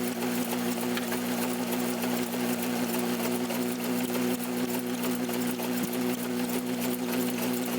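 Massey Ferguson No. 12 hay baler running on a tractor's PTO: a steady, rapid mechanical clatter over the even hum of the tractor engine.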